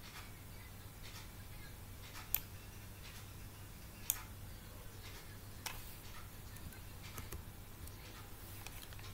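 A few short, sharp computer mouse clicks, the loudest about two seconds in, over a faint steady low hum.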